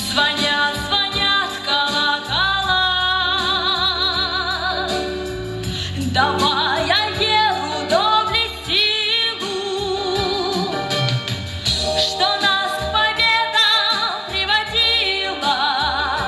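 A woman's voice sings long held notes with wide vibrato, with no clear words, over steady backing music.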